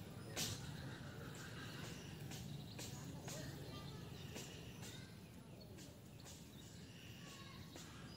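Faint pondside outdoor ambience: scattered short ticks and small chirps, like birds and insects, over a low steady hum.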